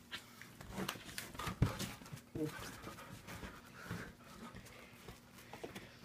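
A dog scuffling with a person on a bed: rustling of bedding and fur with scattered soft knocks, the sharpest thump about one and a half seconds in, and a brief vocal sound a second later.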